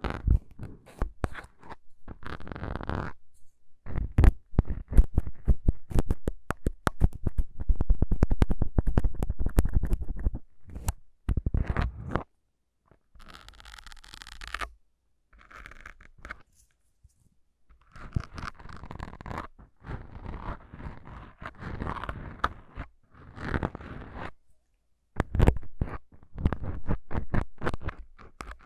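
Plastic syringes with needles handled right at the microphone. Long runs of rapid clicking and scratching, a few short hisses about halfway through, then more scratching and clicks.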